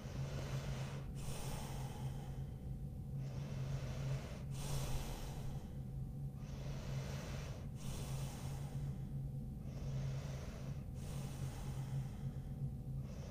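A woman breathing slowly and deeply in and out while holding a seated hip-opening stretch, each breath lasting about a second or more. A steady low hum runs underneath.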